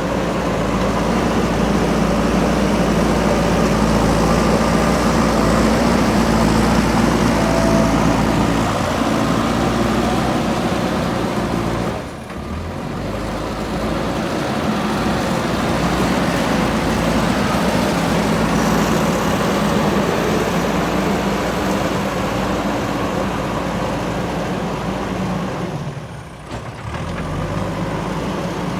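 JCB 3DX backhoe loader's diesel engine running steadily while working soil, with two brief dips in level, about twelve seconds in and again near twenty-six seconds.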